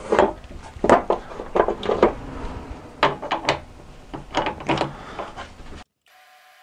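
Metal clicks and clanks as a cutting tool is changed on a stopped metal lathe's tool post: the tool holder is handled and set in place, a handful of sharp knocks over several seconds. Near the end this breaks off abruptly into a faint steady hum.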